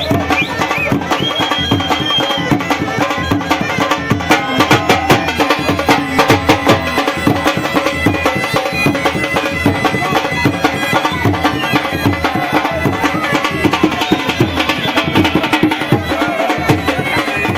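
Music with a steady, dense drum beat and a held melody line over it.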